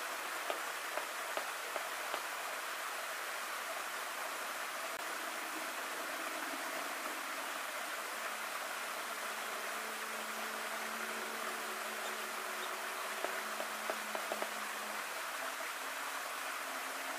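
Shallow creek water running over stones, a steady rushing. A few light clicks sound over it near the start and again about three-quarters through.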